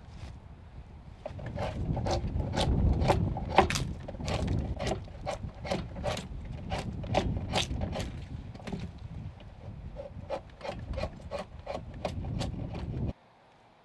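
Curved hand blade paring shavings from the groove of a log: a quick run of short scraping cuts into the wood, about two to three a second, over a low rubbing rumble from a sleeve brushing close by. It stops abruptly near the end.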